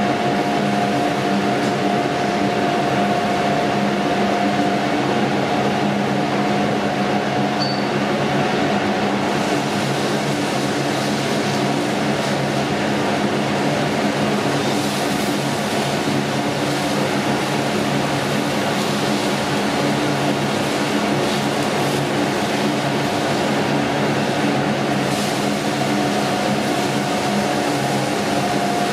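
A steady machine hum with a constant hiss, a held mid-pitched tone and several low tones underneath, unchanging throughout; faint crackles come in the high end from about ten seconds in.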